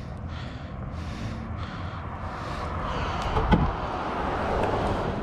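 A car passing on the street, its tyre and engine noise swelling and then fading, with a single sharp knock partway through.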